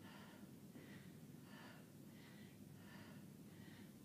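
Faint, quick breathing of a woman exerting herself through repeated side plank crunches, about two breaths a second.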